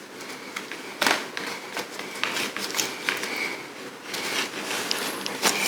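Hair accessories being worked off their plastic-and-card packaging: scattered small clicks, snaps and crinkles of handled plastic.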